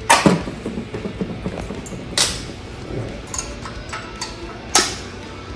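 Three short, sharp clatters a couple of seconds apart as the blower housing of a Ducar 212 small engine is unbolted and lifted off.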